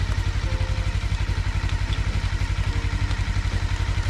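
Vehicle engine idling with a steady, rapid low pulsing.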